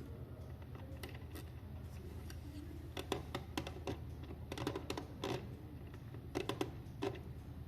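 Irregular small clicks and taps of a plastic quartz cuckoo clock being handled and fitted back together, bunched in the middle, over a low steady hum.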